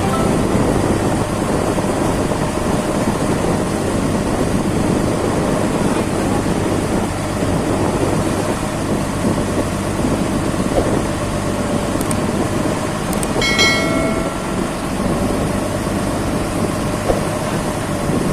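A ferry's engine running steadily with a constant low rumble. About thirteen seconds in there is a short, high beep.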